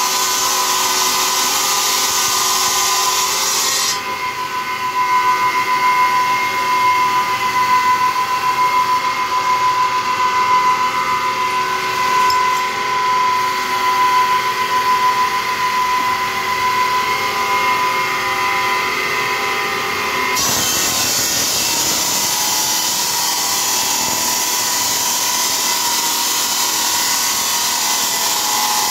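Motorised wet-cutting circular bridge saw running with a steady whine as its blade cuts through tile. The sound changes abruptly about four seconds in, then swells and dips while cutting, and changes abruptly again about twenty seconds in.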